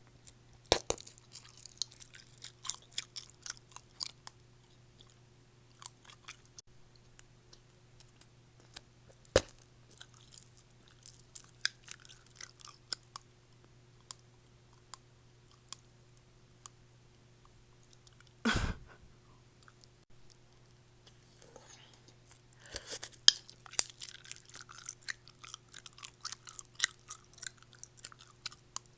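A jaw joint clicking and crackling close to the microphone as the jaw works, in clusters of sharp clicks with a few louder pops, one of them heavier about two-thirds of the way through. A faint steady hum lies underneath.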